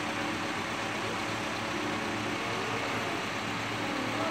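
Engine of a fire brigade aerial platform truck idling steadily, a constant low hum.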